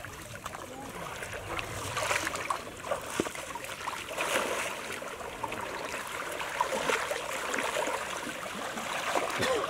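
Water sloshing and splashing as people wade and grope by hand through shallow, weedy water: a continuous wash of small, irregular splashes and drips.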